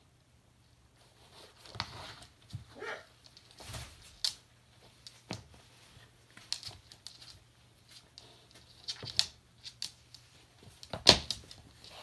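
Hyacinth macaw attacking a fabric slipper on a wooden floor: irregular sharp taps and knocks as its beak and the slipper hit the floorboards while it bites and tugs at the slipper, the loudest knock near the end.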